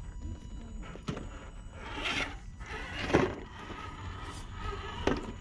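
Scale RC rock crawler working over boulders and gravel: irregular scrapes and knocks of tyres and stones, loudest about three seconds in.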